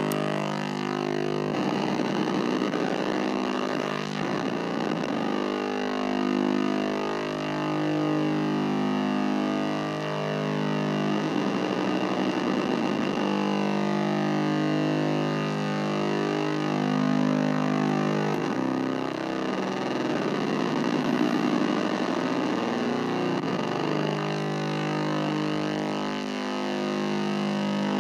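Nova Drone analog drone synthesizer sounding a sustained, distorted buzzing drone of several held pitches. Fast wobbling modulation sweeps through it three times: a couple of seconds in, around the middle, and for several seconds later on.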